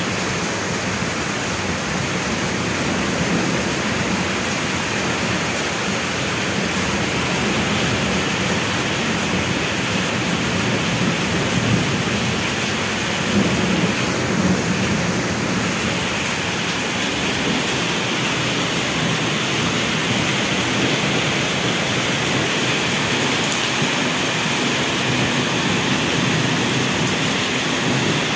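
Heavy rain pouring steadily, with a louder low rumble about halfway through.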